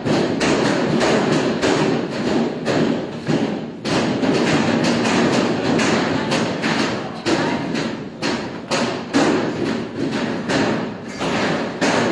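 Hand-pulled noodle dough thumped and slapped on a stainless steel worktable as it is worked and stretched, giving irregular thuds several times a second over a steady hum of room noise.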